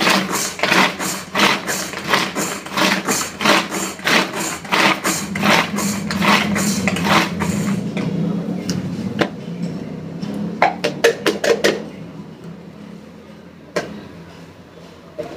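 Knife chopping on a cutting board in quick, even strokes, about three a second. After about eight seconds it slows to scattered taps, with a short rapid flurry near eleven seconds.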